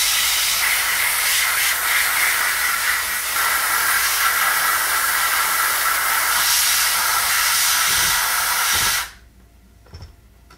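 Compressed-air blowgun hissing steadily as it blows a jet of air onto a 3D print for part cooling, with a faint whistle in the hiss. The air cuts off suddenly about nine seconds in.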